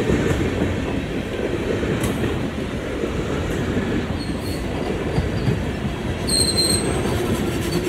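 Empty freight hopper cars rolling past on the rails, a steady heavy rumble and rattle of wheels and car bodies. A thin, high wheel squeal comes in faintly about four seconds in and is strongest a little after six seconds.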